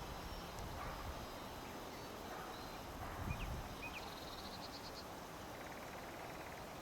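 Nightingale singing faintly over low outdoor noise: a few brief whistled chirps, then short rattling series of rapidly repeated notes, a high one about four seconds in and a lower one near the end.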